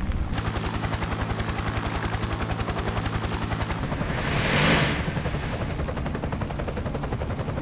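Helicopter rotor beating fast and steadily overhead, with a rushing swell of noise building and fading about four to five seconds in.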